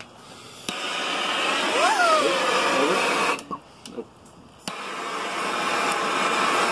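Handheld gas torch lit with a click and burning with a steady hiss, cutting out abruptly partway through, then clicked back on with a few trigger clicks and burning again.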